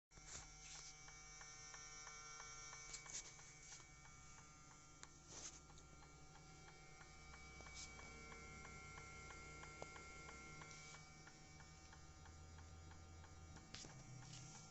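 Faint steady hum with a fast, regular light ticking and a few sharper clicks.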